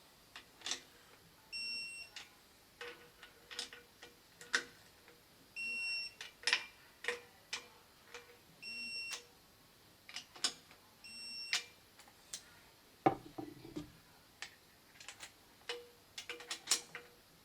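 Torque wrench tightening inlet manifold bolts: repeated metallic ratchet clicks, with a short high electronic beep about every three seconds as each bolt reaches the set torque. A single louder knock comes about two-thirds of the way through.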